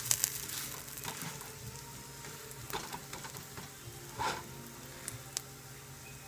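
Scallion pancake sizzling in a little oil in a frying pan over medium-low heat, just turned over, with scattered small crackles. A short knock about four seconds in.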